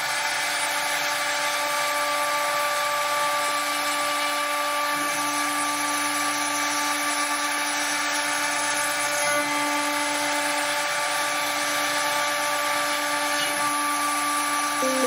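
CNC router spindle cutting 3/4-inch pine with an end mill during a 3D machining job: a steady whine with several held tones over a constant cutting hiss.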